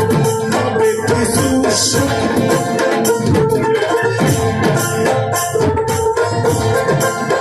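A live Bangla folk band playing, with hand drums and a rattling shaker-like percussion keeping a steady beat under keyboard and string instruments.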